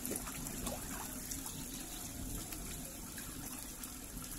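Water pouring steadily from a koi pond's waterfall spout into the pond, with a few small splashes from children moving in the water.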